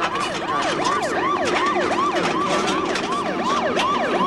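Emergency vehicle sirens in a fast yelp, about three quick rise-and-fall sweeps a second, with a second siren overlapping out of step.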